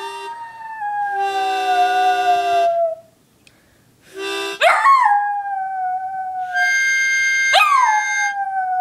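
Dog howling along to a harmonica: a howl already under way, then two more about halfway through and near the end, each jumping up in pitch and sliding slowly down. Between and beneath them, the harmonica plays held chords.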